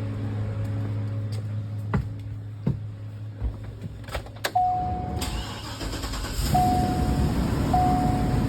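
Clicks and keys jangling as the driver gets into a 2014 Chevrolet Express van. About five seconds in the engine starts and keeps running. The dashboard warning chime beeps in short, evenly repeated tones.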